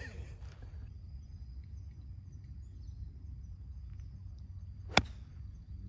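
A 52-degree golf wedge striking the ball on a pitch shot: one sharp click about five seconds in.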